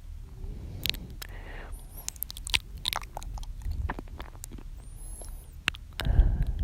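Close-miked ASMR mouth sounds: irregular wet clicks and smacks of lips and tongue, with a louder breath near the end.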